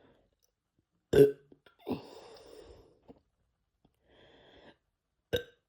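A man burping, brought up by gulping a carbonated Sprite: a loud, short burp about a second in, then a softer, breathy sound for about a second, and a second short burp near the end.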